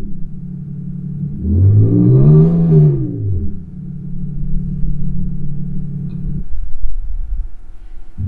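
Synthetic engine sound from a LEO Active Sound Cube 4.0 sound generator on a Mercedes A250e plug-in hybrid: a steady idle, one rev that rises and falls about two seconds in, then idle again. The idle drops away about six and a half seconds in, as the sound profile is being changed.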